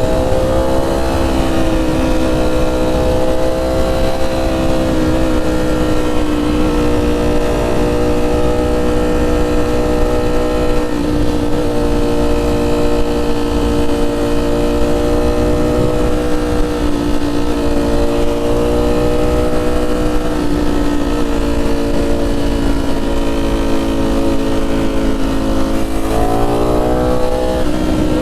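Ducati Streetfighter V4S's V4 engine through SC Project 2-1-2 titanium exhausts, running under way at a fairly steady throttle, its note rising and falling slightly. Near the end the revs climb quickly, then fall back sharply.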